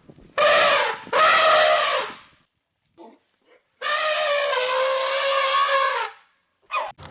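Three loud animal calls, each held on a steady pitch: two short ones close together near the start, then one long call of about two seconds in the middle.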